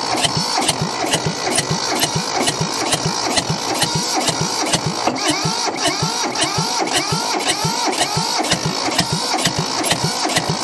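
Electric starter cranking a two-cylinder Mitsubishi diesel tractor engine, with an even chug of compression strokes about three or four a second and a whine that rises and falls with each stroke. The engine turns over but does not catch and run: it is not getting enough fuel to go on its own.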